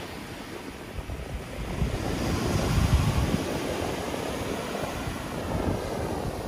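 Small waves washing onto a sandy beach, with a low rumble that builds about a second in, peaks near three seconds and slowly eases.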